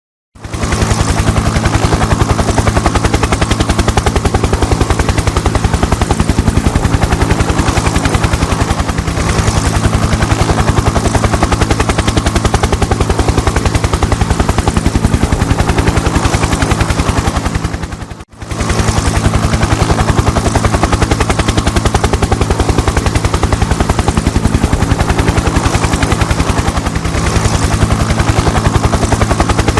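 Helicopter flying steadily, its rotor blades beating in a fast, even chop over a low engine drone. The sound drops out for a moment about eighteen seconds in, then carries on unchanged.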